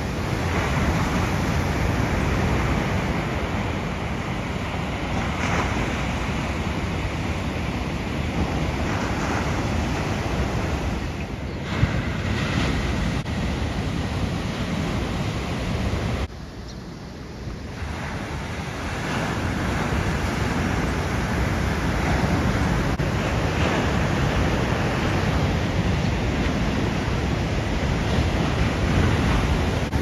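Ocean surf breaking and washing ashore as a steady rush of noise, with wind buffeting the microphone. The sound drops off briefly a little past halfway through, then returns.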